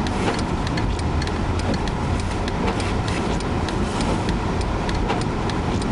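Steady low rumble of a vehicle driving on a snowy road, heard from inside the cabin, with a rapid, regular ticking of about three ticks a second over it.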